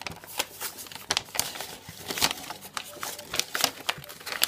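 Paper packaging being handled and unwrapped by hand, crinkling and rustling in a dense run of irregular crackles.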